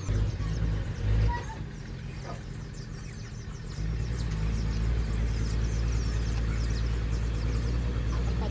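Heavy diesel earthmoving machinery running, a steady low engine hum that gets louder about four seconds in.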